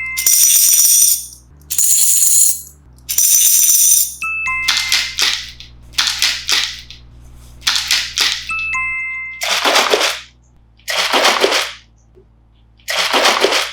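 Beatboxed sound effects: a series of about nine short, noisy, rattling and hissing bursts made with the mouth, each lasting about a second, with gaps between them. A brief two-note electronic chime sounds just before several of the bursts.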